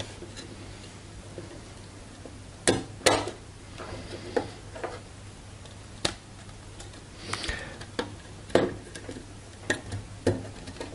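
Plastic clicks and knocks from a TP-Link TD-W9970 router's circuit board being handled and seated back into its plastic case: about a dozen sharp taps at irregular intervals, over a faint steady hum.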